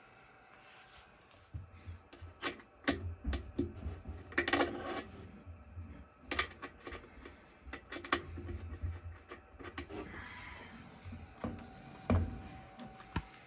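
Irregular clicks, knocks and light metallic clatter of parts being handled and worked on a washing machine, with the sharpest knocks about three and eight seconds in.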